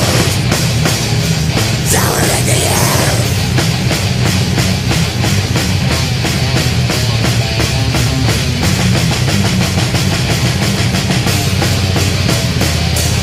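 Death metal: heavily distorted guitars over fast, dense drumming, with a brighter cymbal-like wash about two seconds in.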